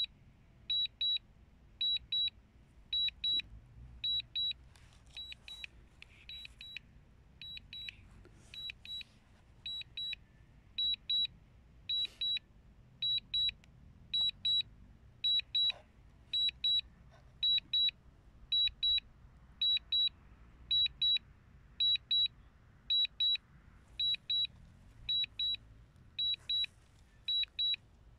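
High-pitched electronic double beeps repeating about once a second from the DJI Mini 2's controls: the alert that the drone is on automatic return-to-home with its battery low.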